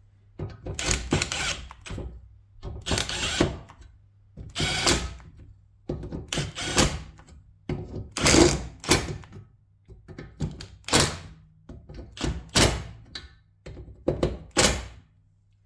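Milwaukee M18 Fuel half-inch mid-torque cordless impact wrench run in short hammering bursts, about one every second or two, driving wheel nuts on on its low setting 4 (about 40 Nm) so they are not over-torqued.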